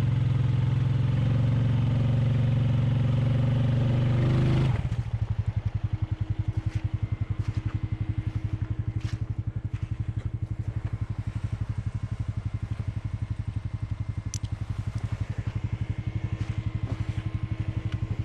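ATV engine running hard under throttle, then dropping back about four and a half seconds in to a steady, evenly pulsing idle.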